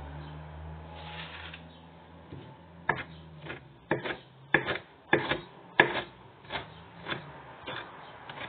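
Chef's knife chopping fresh parsley on a wooden cutting board: a run of sharp knocks of the blade on the wood, about one or two a second, starting about two seconds in.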